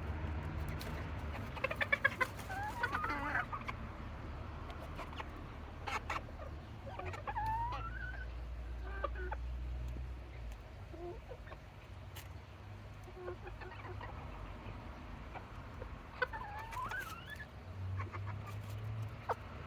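Serama bantam chickens clucking and calling in short bursts, about two seconds in, again around seven seconds in and once more near the end, over a low steady rumble.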